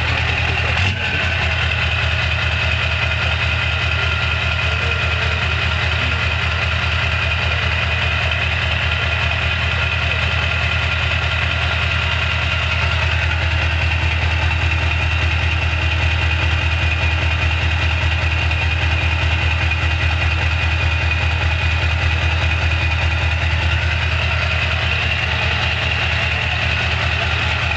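Scania truck engine idling steadily through an open (straight-through) exhaust, heard right at the tailpipe as an even, rapid pulsing; it gets a little louder from about halfway.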